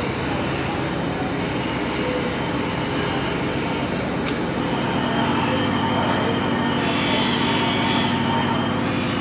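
Workshop machinery running steadily, with two sharp metallic ticks about four seconds in.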